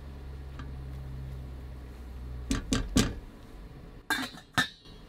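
Stainless steel pot lid handled over a stock pot on a gas stove: a few knocks, then several metallic clinks that ring briefly as the lid goes down on the pot, near the end. Before that, a low steady hum that stops about two and a half seconds in.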